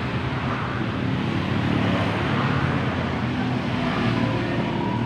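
Steady drone of motor vehicle engines, like nearby road traffic.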